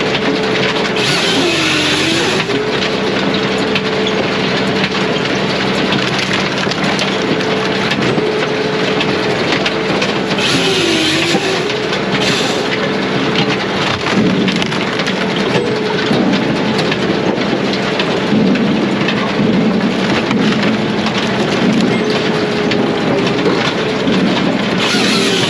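Brute Force USA 18-24 diesel firewood processor running, a steady drone with a hissing rush. Its pitch sags and recovers about two seconds in, about eleven seconds in and again at the end, each time with a burst of hiss, as the machine takes a brief load.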